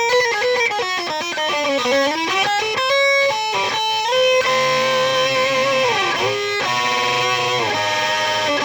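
Distorted electric guitar through a tube amplifier and speaker cabinet playing a lead line. Quick single notes run for the first few seconds, then one long held note slides down in pitch about six seconds in, followed by more notes.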